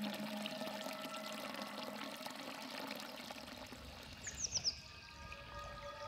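Spring water falling from a spout into a shallow pool, a steady splashing trickle, with soft sustained music tones underneath. About four seconds in, a bird gives a quick run of four short, high, descending chirps.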